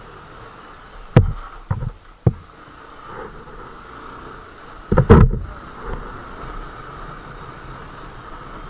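Motorcycle riding over a rough, stony dirt road: steady engine and wind noise, broken by sharp knocks and jolts as the bike hits bumps. There are three knocks a little after a second in and a louder cluster of knocks around five seconds.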